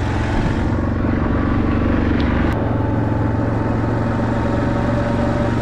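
ATV (quad) engine running steadily at a constant pitch, just started, heard from the rider's seat. A sharp break about two and a half seconds in, after which the engine runs on at the same steady pitch as the quad travels.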